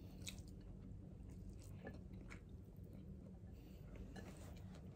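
Faint chewing of rice and meat, eaten by hand, with a few soft clicks scattered through, over a low steady hum.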